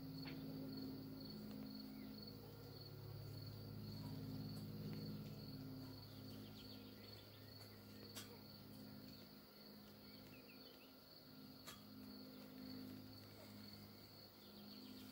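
Faint, steady high-pitched insect trill, like a cricket, over a low hum, with two soft clicks partway through.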